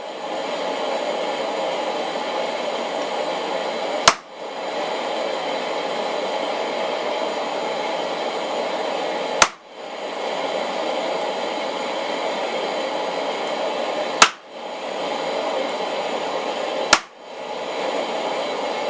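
Hammer striking a hole punch into hot steel on an anvil, four single sharp blows several seconds apart as the punch is re-centered between hits, over the steady rush of the forge.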